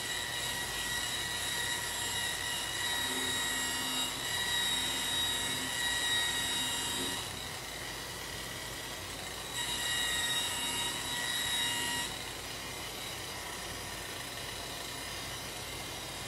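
Electric rotary buffer running with a high-pitched motor whine as its pad works polishing compound over bare aluminum, the first compounding pass with coarse compound. The whine is loudest for the first seven seconds and again from about nine and a half to twelve seconds, dropping to a softer whine in between and afterwards.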